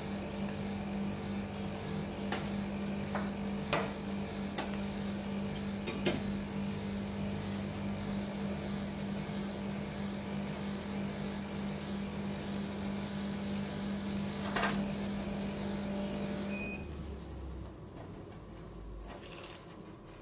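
Steady hum of a rolled-ice-cream cold-plate machine's refrigeration compressor, with sharp clicks and scrapes of a metal spatula against the steel pan as the frozen cream is scored and rolled. The hum cuts off near the end.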